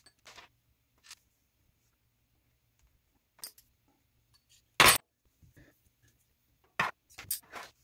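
Scattered clicks and clinks of small hand tools and metal parts as a steel RC suspension link rod is gripped in pliers and a screwdriver is brought to its rod end. The loudest is a sharp click about five seconds in, with another near seven seconds and lighter ticks between.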